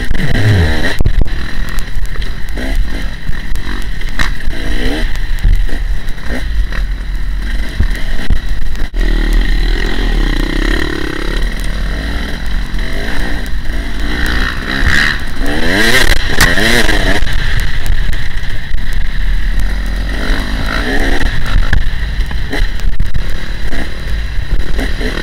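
Dirt bike engine being ridden along a rough trail, its revs rising and falling repeatedly with the throttle, clearest about halfway through, with heavy rumble on the rider's helmet-mounted microphone.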